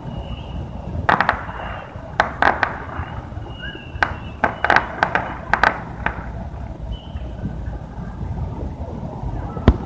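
Fireworks going off across the city, sharp bangs in irregular clusters over a low background rumble, with a single loud bang near the end.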